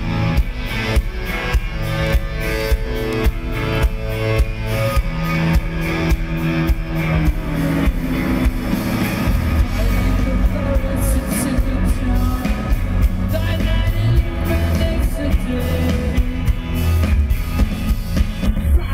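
Live rock band playing: electric guitars and a drum kit keeping a steady beat. The sound grows fuller and heavier about eight seconds in.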